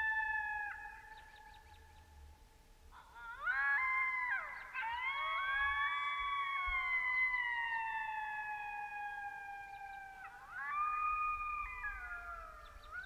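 Coyotes howling in a group: one howl tails off about a second in, then from about three seconds several voices rise together into long overlapping howls that slide slowly down in pitch, with a few short yips. A fresh round of howls starts near the end.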